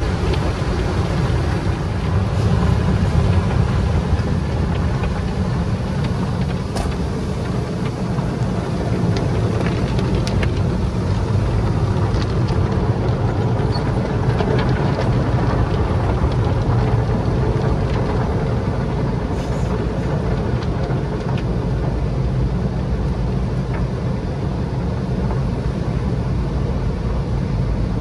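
Automatic tunnel car wash heard from inside the car: water spraying and cloth brushes scrubbing over the windshield and body in a steady rush with a deep rumble. A few light knocks come through here and there.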